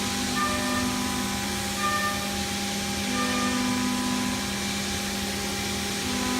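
Haas SL-20T CNC lathe running under power: a steady hum over a hiss, with a higher tone cutting in and out every second or two.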